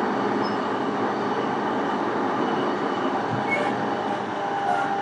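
Running noise heard from inside a JR East E233 series electric commuter train's motor car (MoHa E233-1425): a steady rumble of wheels on rail with a few faint steady tones over it.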